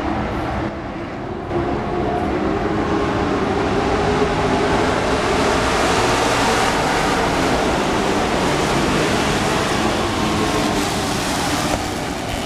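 A pack of dirt-track racing pickup trucks running hard past the stands, several engines blending into one loud, continuous noise. It swells about a second and a half in and eases a little near the end.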